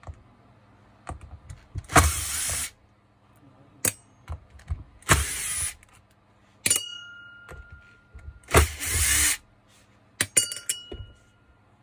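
Cordless driver spinning in three short bursts as it undoes the gear-housing screws of an angle grinder. Loose steel screws clink and ring as they drop into a metal parts bowl about seven seconds in and again near the end.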